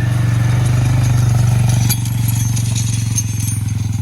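Engine of the vehicle towing a harrow drag across a pasture, running steadily under load and easing off slightly about two seconds in, with light clattering after that.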